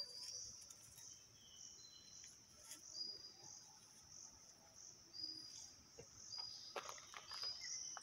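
Faint insect chirping: a steady high-pitched drone with short chirps repeating about once a second. A few soft clicks come about three-quarters of the way through.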